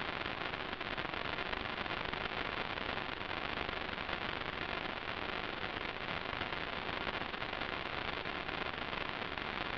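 Steady, even hiss of static with no motor or propeller tone in it, from the audio channel of an analog FPV video link.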